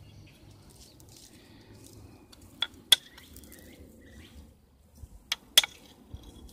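Antler punch tool striking a dark stone in flintknapping: four sharp clicks in two pairs, each pair a quarter second apart, the pairs about two and a half seconds apart, the last the loudest.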